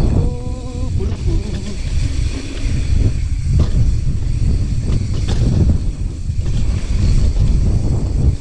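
Strong wind buffeting the microphone over the rumble of mountain bike tyres on a dirt trail, with a few sharp knocks as the bike rattles over bumps.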